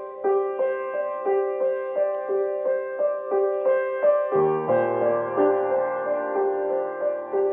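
Solo piano improvisation: a steady repeating figure of notes, about three a second, in the middle-upper range; about four seconds in, low bass notes come in and ring under it.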